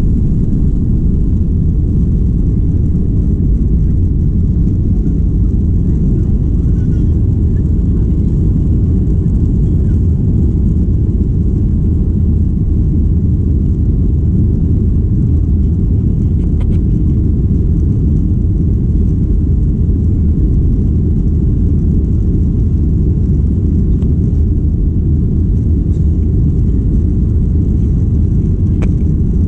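Steady low rumble inside the passenger cabin of a Boeing 737-800 airliner, with a few faint ticks over it.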